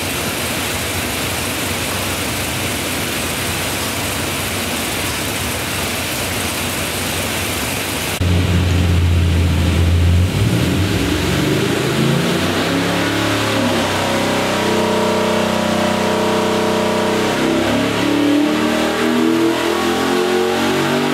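454-cubic-inch LS-based V8 running on an engine dyno. For about the first eight seconds it is a steady, even noise with no clear note. Then it changes abruptly to a low, pitched engine note that revs up and down in steps.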